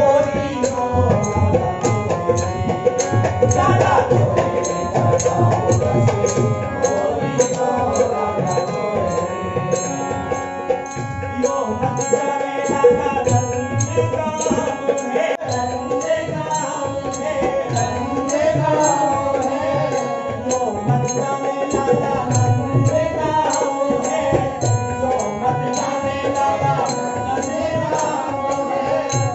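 Group devotional singing (a bhajan) with hand-drum accompaniment keeping a steady beat.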